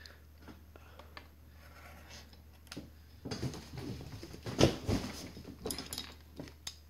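Handling noise on a work table: rustling, light clicks and a clatter as wire leads, plastic solenoid connectors and a pair of pliers are moved about. It starts about three seconds in and is loudest a little past halfway.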